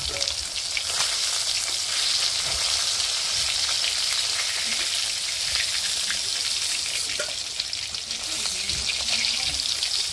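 Katla fish steaks sizzling and crackling steadily in hot oil in a kadai, the fried pieces done and being lifted out.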